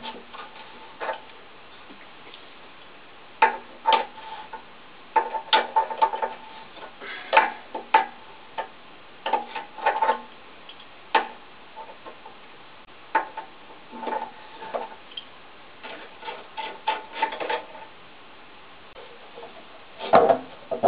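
Irregular metallic clicks and knocks, several with a brief ring, as the steel expansion vessel of a wall-hung gas boiler and its fittings are handled during removal.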